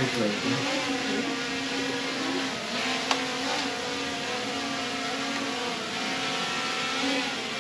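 Quadcopter drone hovering close by, its motors and propellers making a steady buzzing hum with several held pitches that shift slightly. A single sharp click about three seconds in.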